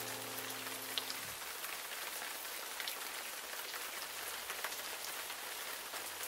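Steady rain ambience, an even hiss flecked with small drop ticks. A held musical chord fades out under it about a second in.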